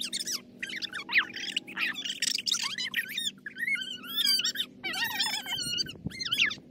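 Small birds chirping and twittering in quick, wavering phrases, over a faint steady low hum that fades out about five seconds in.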